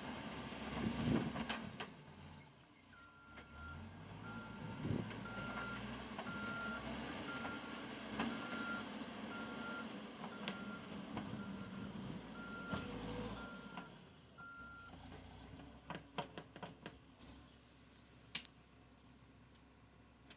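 Backhoe loader's diesel engine running while its reversing alarm beeps steadily about once a second for some twelve seconds. Near the end come a series of sharp metallic knocks, the loudest about two seconds before the close.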